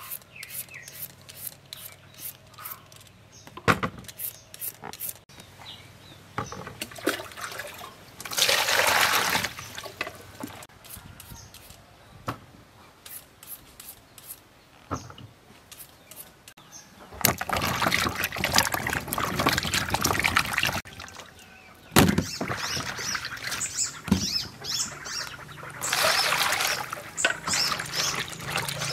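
A vegetable peeler scrapes strips off small cucumbers in short clicking strokes. Later, hands swish and splash tiny shrimp in a basin of water in several bursts lasting a few seconds each.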